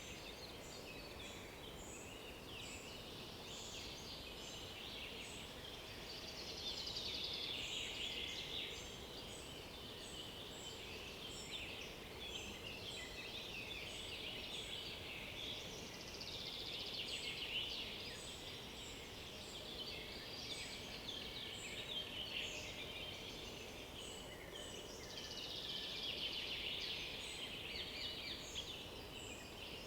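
Dawn-chorus-style mix of several songbirds singing in an oak-beech forest, with many short high notes repeated throughout. A louder fast-trilled song swells up about every nine seconds.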